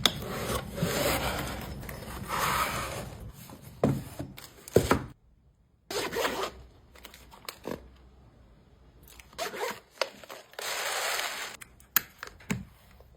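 Packaging being handled by hand: plastic rustling and scraping in stretches, with sharp clicks and taps between, and a brief near-silent pause about five seconds in.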